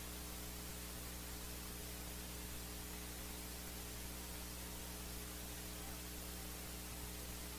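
Steady electrical mains hum under a constant hiss, with nothing else standing out.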